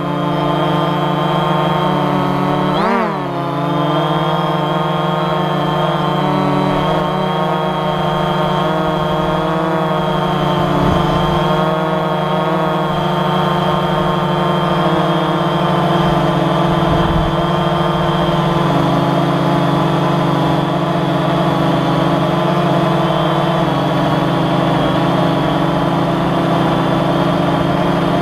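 AirDog drone's electric motors and propellers whining steadily, heard close up from the camera it carries; the pitch swoops up and back down briefly right at the start and again about three seconds in.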